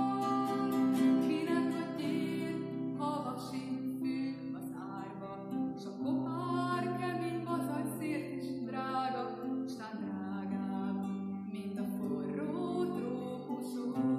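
A woman singing a Hungarian poem set to music, accompanied by strummed acoustic guitar chords.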